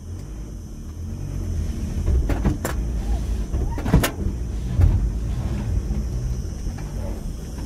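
Van engine running and revving as the van tries to drive out of soft sand, its wheel failing to grip. The engine gets louder about a second in, and there are a couple of sharp knocks in the middle.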